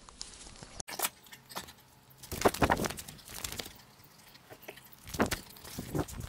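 Irregular footsteps on gravel and grass, mixed with short clicks and rustles.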